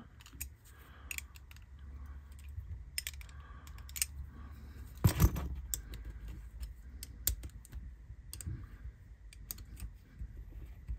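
Small steel spanner turning the magnet-fixing nut on a Hornby Dublo locomotive's diecast chassis: light irregular metallic clicks and taps, with one louder knock about five seconds in.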